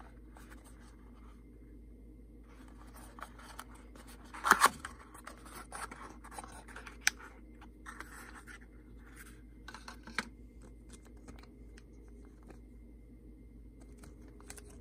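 Small cardboard box being handled and opened by hand: scraping and rustling of the card, with two loud snaps about four and a half seconds in and a few sharp clicks after.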